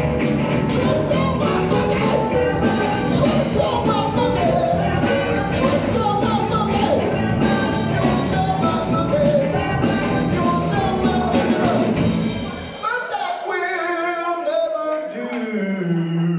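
Live blues-rock band playing: electric guitar, bass, keyboards, drums and singing. A little under 13 seconds in the drums and bass drop out, leaving a few held notes that bend in pitch, as the song winds down to its close.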